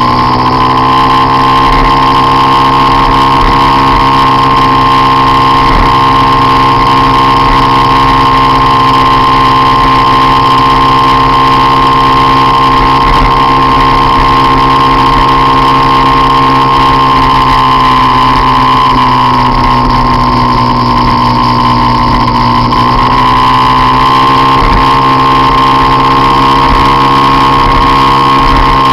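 Peugeot Jet Force Compressor scooter's supercharged engine running hard at a steady high pitch while riding. The note sags slightly past the middle and climbs back near the end.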